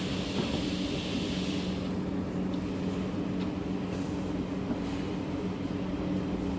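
Steady machine hum with a constant low tone, a hiss that fades out about two seconds in, and a few faint clicks.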